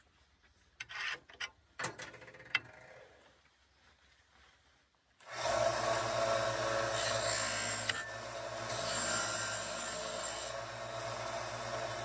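Bench-top combination belt and disc sander: a few light clicks and knocks, then about five seconds in the sound jumps to a loud, steady motor hum with the rasp of a wooden piece being ground against the sanding disc.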